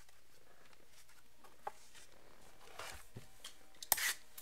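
Quiet room tone with a few faint handling taps and rustles on a tabletop. About four seconds in comes a short, louder scrape and rustle as a sealed cardboard box of trading cards is picked up off the table.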